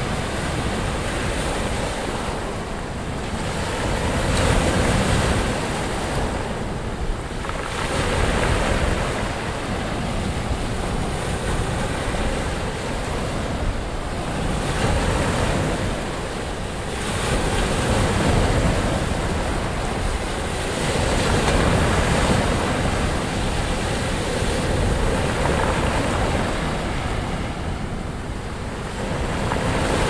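Rough-sea surf: waves breaking and washing in, a steady rush that swells every few seconds as each breaker crashes.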